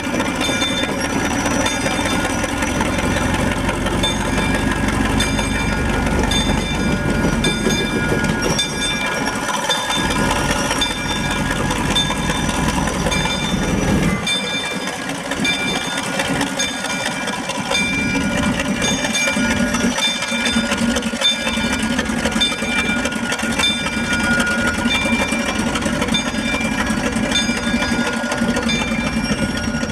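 1943 Plymouth industrial locomotive running with a coach in tow: a steady engine rumble with rail and wheel noise, and a ringing tone repeating about once a second. The low rumble drops sharply about halfway through.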